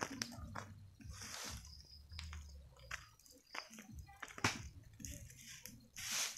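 Small fire of dry leaves and bamboo litter crackling, with irregular sharp snaps and pops.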